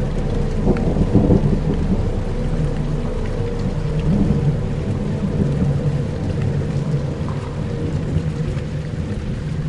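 Dark ambient soundscape: low sustained drones under a steady rain-like hiss, with rumbles of thunder swelling about a second in and again around four seconds.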